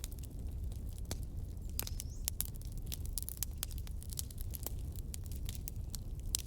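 A wood campfire crackling, with irregular sharp pops and snaps over a steady low rumble.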